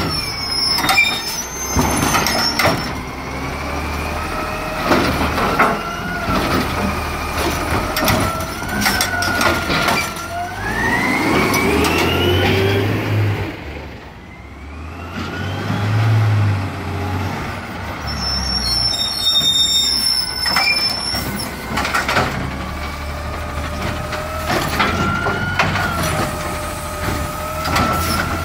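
Garbage truck at work: its engine runs steadily amid repeated clanks and knocks, with a rising whine about ten to thirteen seconds in.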